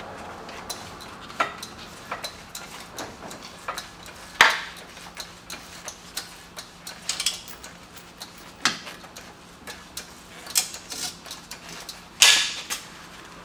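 Floor jack being pumped under the rear lower control arm, with irregular metallic clicks and clunks as the arm rises and compresses the new lowering spring. Two louder clunks come about four seconds in and near the end.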